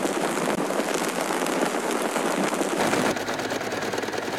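A gas torch flame hissing and crackling against a fabric sample in a burn test. About three seconds in, an electric sewing machine starts stitching at a fast, even rate.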